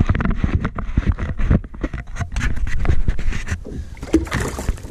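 Rapid, irregular knocks, scrapes and handling noise on a plastic sit-on-top fishing kayak as a pollock is brought aboard, with panting breath.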